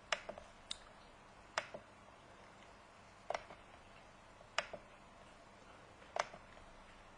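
Faint computer mouse clicks, some singly and some in quick pairs, every second or two, from a mouse operating software menus.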